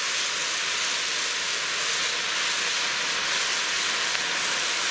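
Diced vegetables sizzling in a hot cast-iron Dutch oven: a steady, even hiss.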